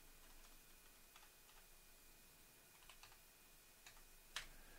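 Faint computer keyboard key presses: a few scattered soft clicks of typing, the last one near the end the loudest.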